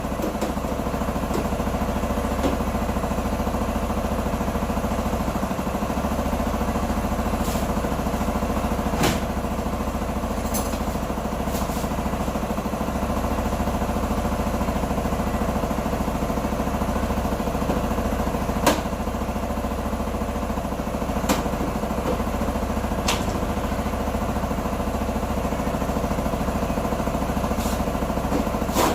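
Small scooter engine of a Q2 125 idling steadily, with a few sharp clicks scattered through.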